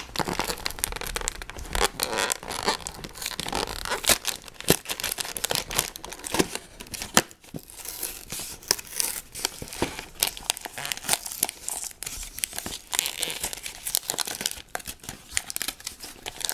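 A LEGO set's packaging being torn open and crinkled by hand, with irregular crackling and rustling and a short lull about seven seconds in.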